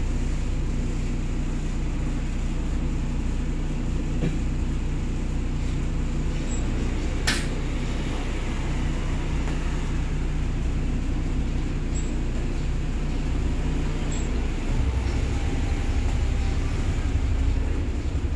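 Steady low engine rumble of a city bus heard from inside its cab, with one sharp click about seven seconds in. The low rumble grows heavier in the last few seconds.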